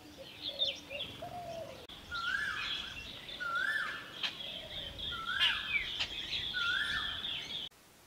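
Several small birds chirping and twittering, with a whistled call repeated four times, each note rising and then holding, about once every second and a half. The birdsong cuts off suddenly near the end.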